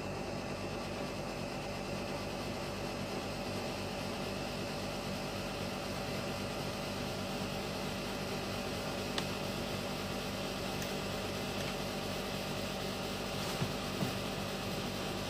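Steady electrical hum and hiss with no speech. A few light clicks as the crocodile clips on the capacitor terminals are handled, two close together near the end as the clips come off.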